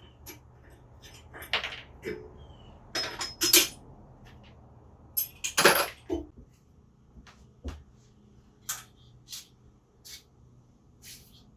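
Irregular metallic clinks and knocks of hand tools and small motorcycle parts being handled during a teardown, loudest about one and a half, three and a half and nearly six seconds in, then fainter taps.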